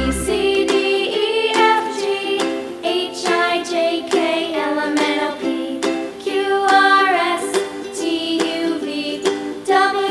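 Background music: light plucked-string accompaniment with a melody over it.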